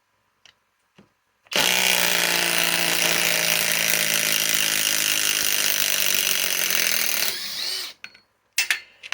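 A Flex 6 Ah cordless impact tool runs in reverse under load for about six seconds, backing out a fastener, then winds down; a few sharp clicks follow near the end.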